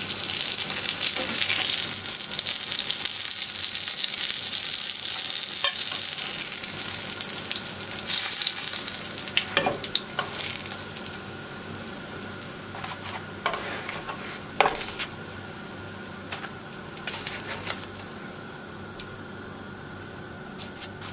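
Hot oil sizzling around paçanga börek rolls in a frying pan as they are lifted out with metal tongs. The sizzle is loud for the first several seconds and dies down to a faint hiss as the pan empties, with sharp clicks of the tongs against the pan.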